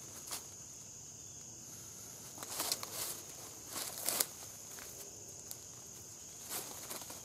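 Footsteps in dry leaves and twigs on a forest floor, in short clusters about two and a half seconds in, around four seconds in and again near the end. Under them runs a steady high insect trill.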